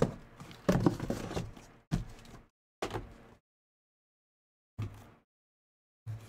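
Shrink-wrapped cardboard trading-card hobby boxes being picked up, slid and set down on a table. There is a run of knocks and scuffs, loudest in the first two seconds, then a few shorter single bumps.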